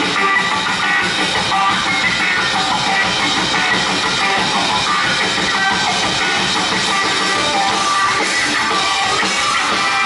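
Live rock band playing an instrumental passage: electric guitar over a drum kit, with no singing.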